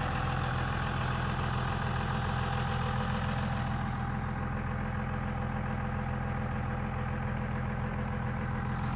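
1999 Dodge Ram 2500's 24-valve Cummins 5.9-litre straight-six turbodiesel idling steadily.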